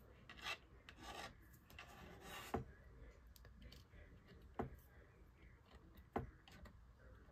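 Faint rustling and rubbing of small die-cut paper pieces being slid about on a work surface, with a few light taps as pieces are set down.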